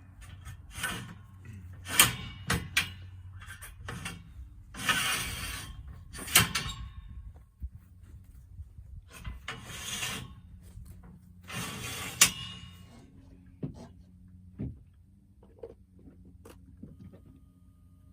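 Hooking a log hitch onto a log: scraping and rubbing against wood, broken by sharp knocks and clanks, over a faint steady low hum.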